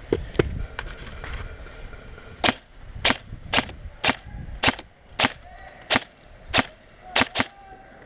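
Airsoft rifle firing single shots in a steady run of about a dozen sharp cracks, roughly two a second, starting a couple of seconds in. Before the shots there are a couple of knocks and some handling rustle.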